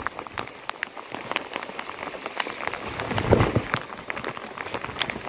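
Rain falling steadily, with individual drops striking close to the microphone as sharp, irregular ticks over a constant hiss.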